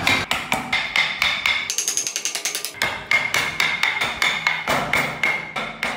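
Rapid, even wooden tapping, about six knocks a second, with music playing over it.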